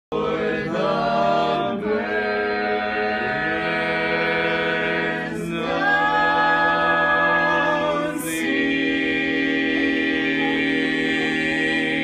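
A small group singing a barbershop tag a cappella in close harmony: long held chords that change every few seconds, with brief breaks for breath between phrases.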